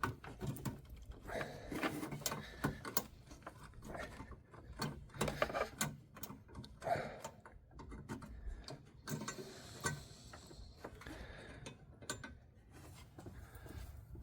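Irregular small clicks and rattles of a headlight bulb and its clips being worked by hand into the headlight housing.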